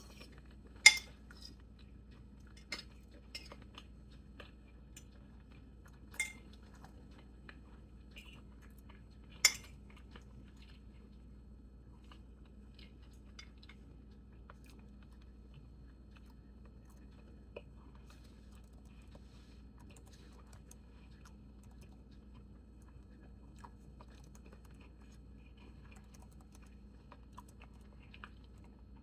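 Cutlery clinking sharply against a plate three times in the first ten seconds, with a few lighter taps, then soft chewing and small eating noises over a faint steady hum.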